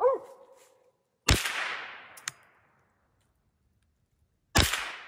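Two gunshots about three seconds apart, each trailing off in a long echo through the woods. A hunting dog, a Mountain Cur, gives a short bark at the very start.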